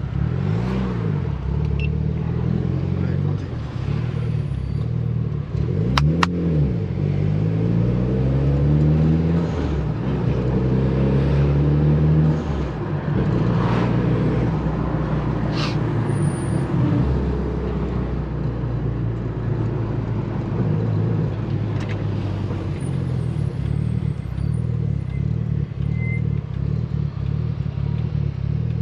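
Mitsubishi Lancer Evolution VIII's turbocharged four-cylinder engine pulling while driving: the engine note climbs in pitch from about six seconds in to about twelve seconds, then drops back to a steadier cruise. Two sharp clicks stand out, one about six seconds in and one about fifteen seconds in.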